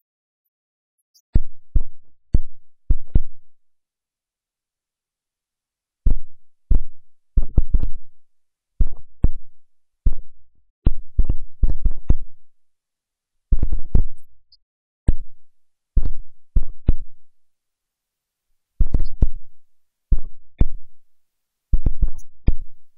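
Dull low thumps, two to four in quick succession at a time, repeating in clusters, each dying away fast, with dead silence between the clusters.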